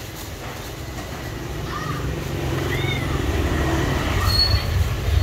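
Low rumble of a passing vehicle, growing steadily louder, with three short high squeals over it.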